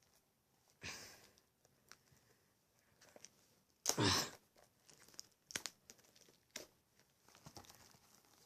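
Blu-ray packaging being torn and pulled open by hand: scattered crinkling and tearing sounds, the loudest tear about four seconds in, then a run of small crackles.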